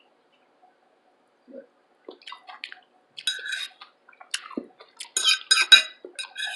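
Close-miked eating: wet chewing and mouth clicks on a vegetable meal. The bursts of crackling start about two seconds in and are loudest near the end.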